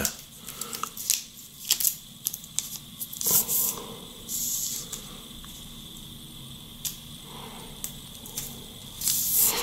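Plastic wrapping and a phone's protective film rustling, with light clicks as a new smartphone is handled and turned over. There are short scattered rustles in the first few seconds, quieter handling in the middle, and a louder rustle near the end.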